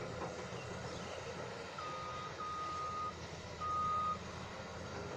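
Reversing alarm of a heavy earthmoving vehicle sounding three steady, high beeps of one pitch, over the low running of the diesel engine.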